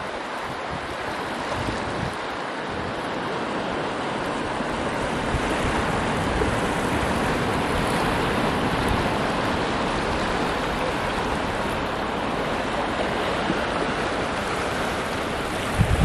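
Surf washing onto the beach with wind buffeting the microphone: a steady rushing that swells slowly over the first half.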